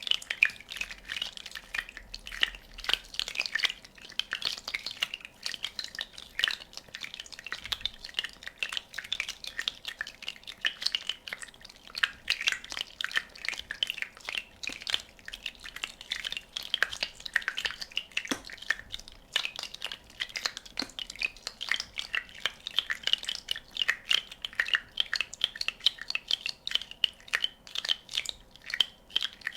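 Many small bubbles popping in a rapid, continuous crackle of tiny clicks.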